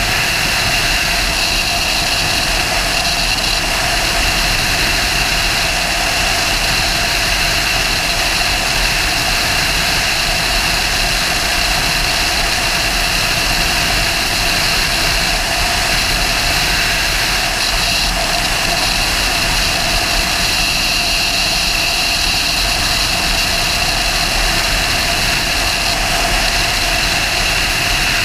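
Sportbike at steady highway cruising speed: a constant engine drone under heavy wind rush on the microphone, with no change in throttle.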